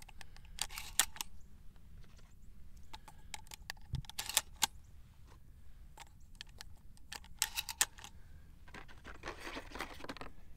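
12-gauge shells being thumbed one by one into the tube magazine of a Browning A5 semi-automatic shotgun through its bottom loading port. Three clusters of metallic clicks and snaps come about three seconds apart, and a soft rustle follows near the end.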